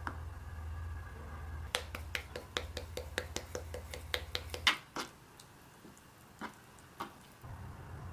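Wooden spoon stirring a garlic-butter mixture in a ceramic bowl, knocking against the bowl in a quick run of clicks, about five a second, for about three seconds, then two single knocks. A low hum underneath stops partway through.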